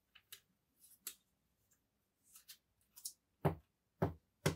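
A thick trading card being worked into a tight-fitting rigid clear plastic card holder: light scrapes and clicks of card edge against plastic, then three sharp knocks about half a second apart near the end.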